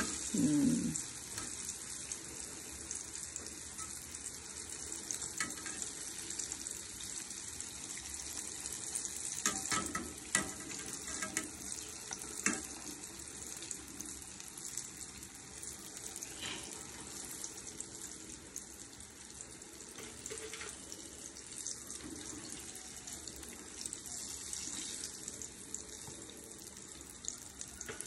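Steady hiss of water running from a tap into a sink, with a few light clinks about ten to thirteen seconds in.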